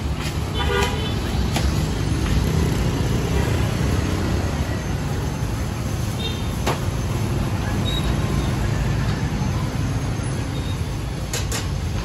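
Street traffic with engines running steadily, and a short vehicle horn toot about a second in.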